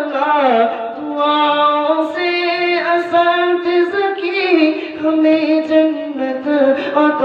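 A group of teenage boys singing an Islamic song together through a microphone, with long held, gliding notes and no instruments.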